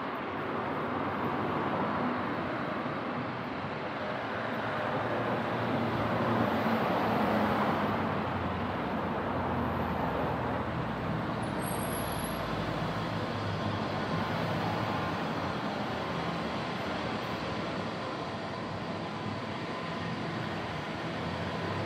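Road traffic driving past, with one vehicle passing louder about seven seconds in.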